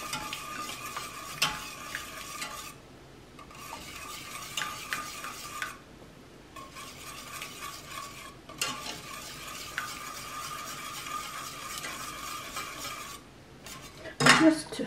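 Wire whisk stirring and clicking against the side and bottom of a stainless steel saucepan, whisking chocolate into hot caramel sauce, with short pauses about 3 and 6 seconds in and again near the end.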